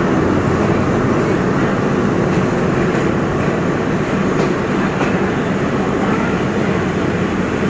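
A train running along the track: a steady rumble of wheels on rails.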